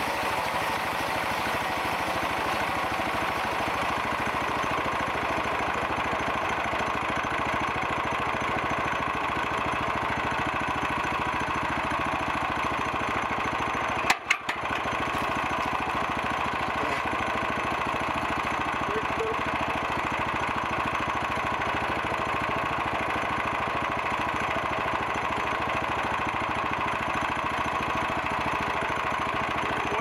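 The small gasoline engine of a homemade band sawmill running steadily. About fourteen seconds in there is a sharp click and a brief dropout.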